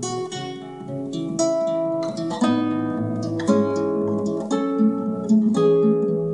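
Classical nylon-string guitar played solo: plucked and strummed chords of a slow melody, with a new chord about every second.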